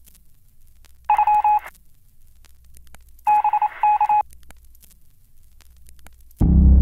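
Two short bursts of electronic telephone-like beeping, a steady two-tone sound, about a second in and again about three seconds in, the second broken into short pulses. Music comes in loudly near the end.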